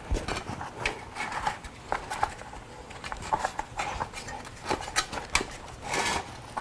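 A rubber inner tube and tire being worked by hand onto a bicycle wheel rim: irregular rubbing and small knocks and clicks.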